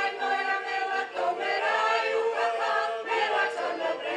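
Ukrainian folk choir singing in several voices, holding long notes.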